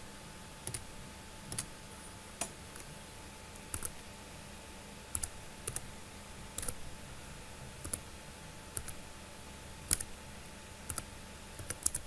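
Computer keyboard keys clicking one at a time at a slow, uneven pace, some in quick pairs, as a password is typed in.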